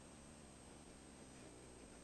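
Near silence: a faint steady hiss with a thin, high, steady whine.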